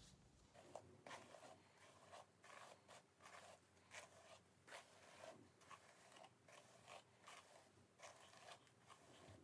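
Pink Tangle Teezer detangling brush drawn through long curled hair in quick repeated strokes, a faint scratchy brushing.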